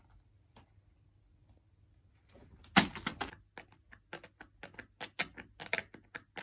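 Cat batting and pawing at a plastic Whiskas treat tub, trying to open it: a sharp click about two and a half seconds in, then a quick run of plastic clicks and knocks, about three or four a second.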